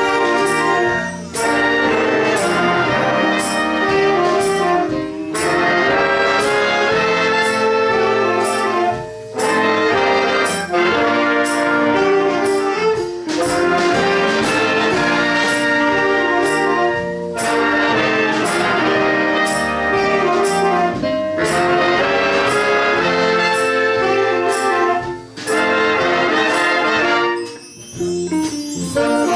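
Big band playing: trumpets, trombones and saxophones in sustained chords, phrase after phrase with short breaks between them.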